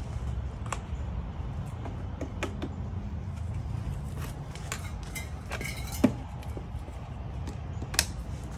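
Scattered metallic clinks and taps of tools and hardware being handled, with a sharper clank about six seconds in and another near the end, over a steady low rumble of an idling engine.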